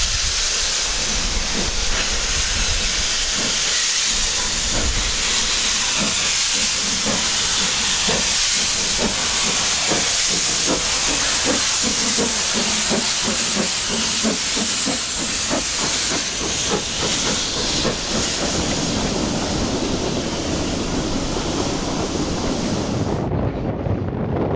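Isle of Man Railway Beyer, Peacock narrow-gauge steam tank locomotives starting away with a loud, steady hiss of escaping steam and a regular chuffing beat. Near the end the sound changes abruptly to a duller outdoor rumble.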